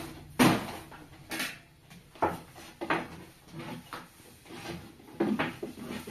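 A series of irregular knocks and bumps, the loudest about half a second in, with several smaller ones spread through the rest.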